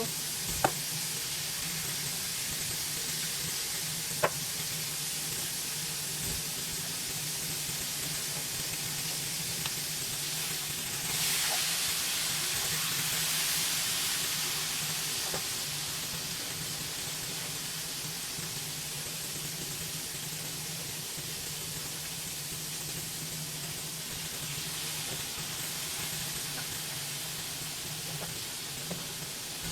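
Pork steaks frying in a pan: a steady sizzle over a low hum. There are a couple of sharp utensil clicks in the first few seconds, and the sizzle swells about eleven seconds in, then eases off.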